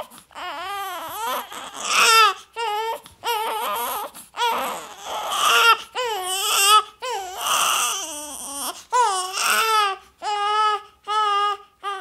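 Baby crying: a string of high, wavering cries broken by quick catches of breath, ending in a run of short, even cries about two a second.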